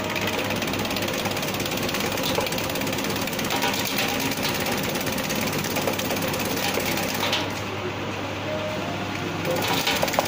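Motor-driven cassava slicer running, its spinning disc blade chopping tubers into chips with a fast, steady chatter over a constant machine hum.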